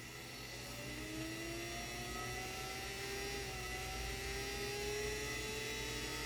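3D-printed axial-flux brushless DC motor, driven by an Arduino controller, whining as it runs up to speed, its pitch rising slowly and steadily.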